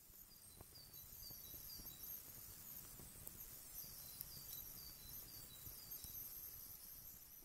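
Faint crackling of a small twig fire, with scattered sharp pops, while a small bird calls in two runs of short, falling notes.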